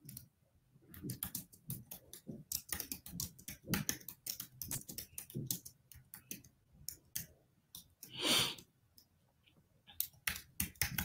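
Typing on a computer keyboard: quick, irregular key clicks in bunches, as someone looks something up. About eight seconds in there is one louder, short hissing sound, like a breath.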